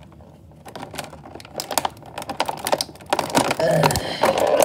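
Plastic toy packaging clicking and crackling as a stuck action figure is worked free of its tray, in irregular sharp clicks that grow denser and louder through the second half.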